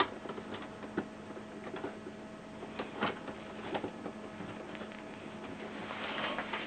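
Scattered light clicks and plastic rustling from hands working on an inkjet printer's ink tubing and print carriage, over a steady low hum; the rustling thickens near the end.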